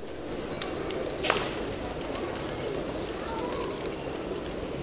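A large flock of feral pigeons on a paved square, cooing over a steady background hum of outdoor noise. One sharp crack about a second in.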